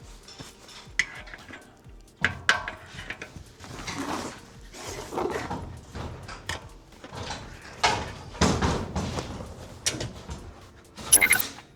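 Irregular clinks, knocks and scraping of metal bicycle parts and tools being handled on a workbench, with a sharp clatter near the end.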